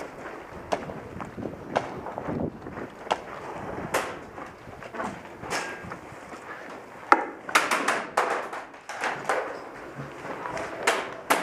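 Footsteps with irregular knocks and scuffs as a person walks from dirt ground into a wooden building, the steps coming thicker in a cluster about two thirds of the way in.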